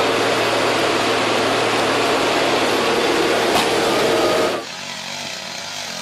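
Gas chainsaw running at full throttle, cutting into the base of a large tree trunk. About four and a half seconds in it cuts off abruptly, leaving a quieter, lower engine hum.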